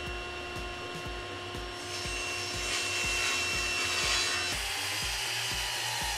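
Table saw running with a steady whine, then ripping through a plywood board: a loud rasping hiss of the blade in the wood builds from about two seconds in. The sound changes abruptly a little after four seconds.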